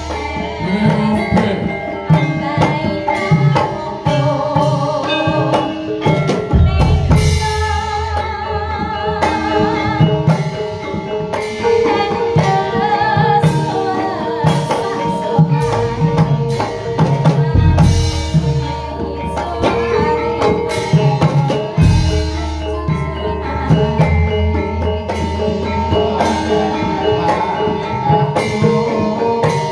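Loud music with a steady drum rhythm under melodic instruments, the melody line wavering in places.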